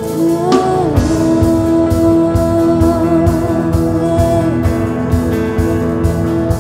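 Live worship band playing: keyboard, electric guitars and drums, with one long held note over the band. The drum beat comes in about a second in.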